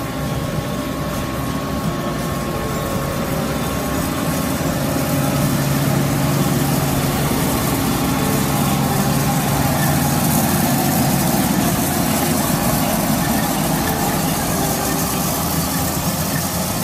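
Case Puma 240 CVX tractor's six-cylinder diesel engine running steadily at a low, even speed, growing a little louder over the first few seconds.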